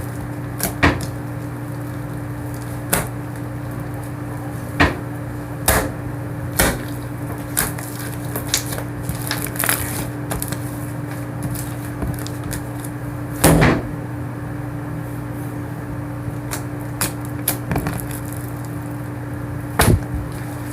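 Slime being squeezed and handled, giving sharp, irregular clicks and pops from trapped air, over a steady low hum.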